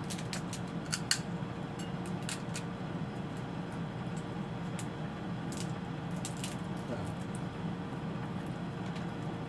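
Crab shells being cracked and picked apart by hand while eating: scattered sharp clicks and small crunches, several in quick succession in the first seconds and again past the middle. A steady low hum runs underneath.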